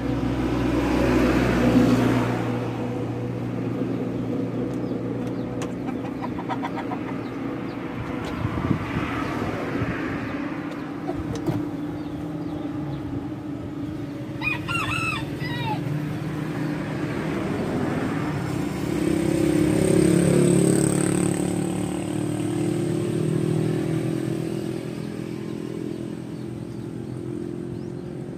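A rooster crows once, about halfway through, a single call of about a second and a half, over a steady low hum that swells twice.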